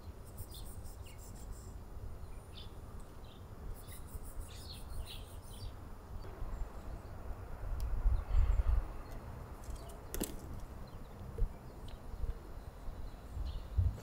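Outdoor ambience of small birds chirping in short calls and rapid chattering bursts over a steady low rumble, which swells about eight seconds in; a single sharp click about ten seconds in.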